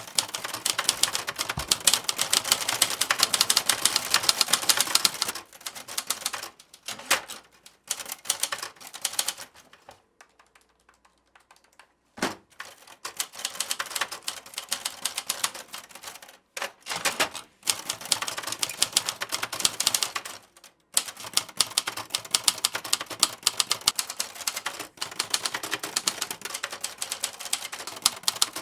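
Typewriter being typed on in fast, dense runs of key strikes, broken by short pauses and one gap of about two seconds near the middle.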